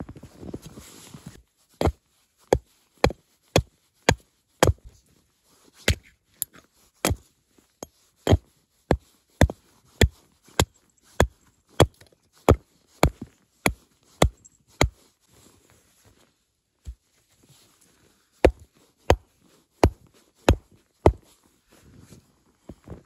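Wood being chopped: sharp, evenly spaced strikes, nearly two a second, that stop for a few seconds and then resume for a short final run.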